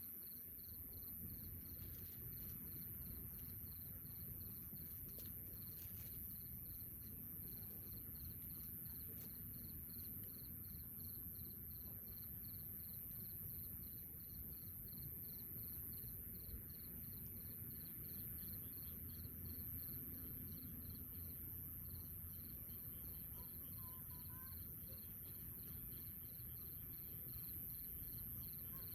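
Night insects: a steady high-pitched trill with a cricket chirping about twice a second, over a faint low background noise.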